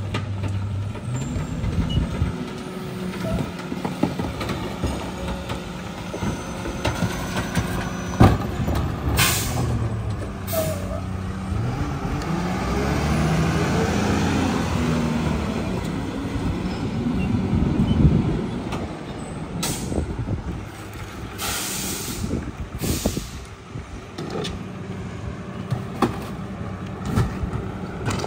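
Mack garbage truck with a McNeilus rear-loader body, its diesel engine running as it rolls up and stops. Short, sharp air-brake hisses come twice before the middle, then as a cluster of several about two-thirds of the way through.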